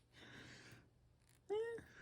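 A cat meows once, briefly, about one and a half seconds in, after a soft rustle.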